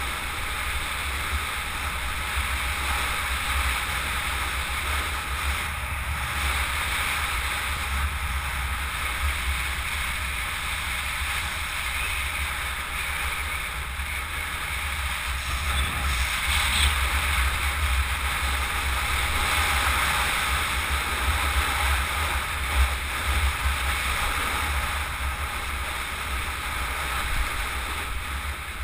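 Wind rushing and buffeting over a helmet-mounted camera's microphone during a fast downhill run, a steady rush with a heavy low rumble, mixed with tyre and road noise. It grows a little louder past the middle.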